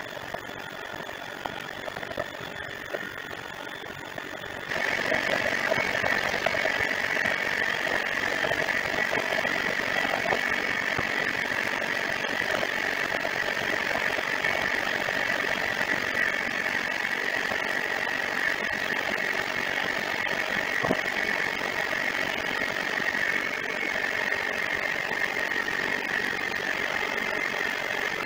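Electric hand mixer with dough hooks running in a bowl of flour, mixing dough: a steady motor whine that jumps louder and slightly higher in pitch about five seconds in, then holds steady.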